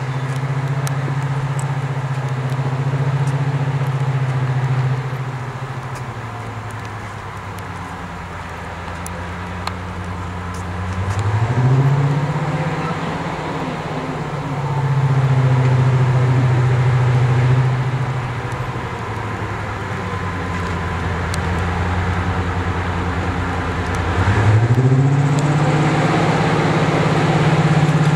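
Class 55 Deltic diesel locomotive 55002's Napier Deltic two-stroke engines running, the engine note dropping back about five seconds in, rising again about eleven seconds in, falling at around eighteen seconds and rising once more near the end.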